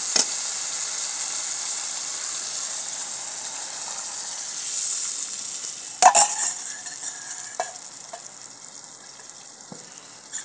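Tomato-onion masala sizzling in hot oil in a kadai as a steel ladle stirs it. About six seconds in, metal clatters as gram-flour and buttermilk batter is poured in from a steel bowl, and the sizzle dies down.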